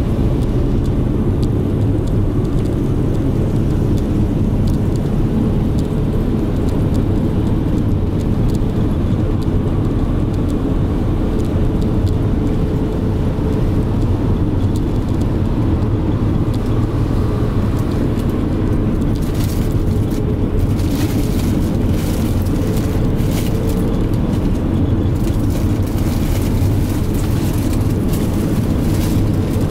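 Inside a moving minibus: the engine and tyres make a steady low rumble, with scattered clicks in the last third.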